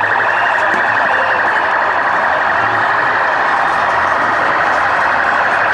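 Police vehicle sirens wailing over a loud, steady din.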